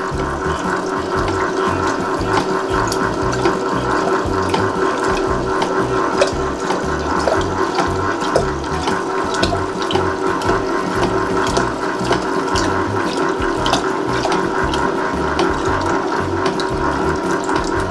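Tarrington House ice cream maker running, its motor turning the stirring paddle with a steady hum, pulsing rumble and scattered clicks, while the liquid ice cream mix is poured into the turning bowl.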